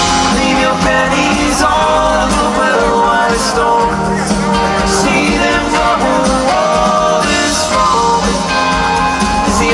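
Live rock band playing loud through a festival PA, heard from the crowd: drum kit with cymbals, electric guitars and keyboards.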